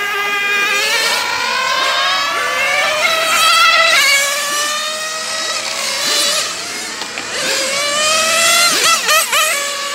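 Several 1/8-scale electric RC racing cars whining at speed, their overlapping pitches climbing steadily as they accelerate and dropping back as they brake, with quick up-and-down wobbles about nine seconds in.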